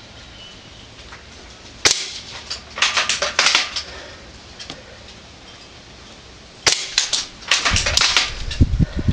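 L96 airsoft spring bolt-action sniper rifle firing twice, a sharp snap about two seconds in and another near seven seconds, each followed by a quick run of clicks as the bolt is worked. A low rumbling noise starts near the end.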